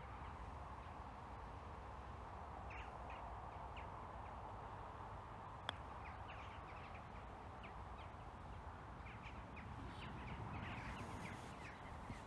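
A putter striking a golf ball once, a single sharp click a little over halfway through, over a steady background hiss with birds calling repeatedly.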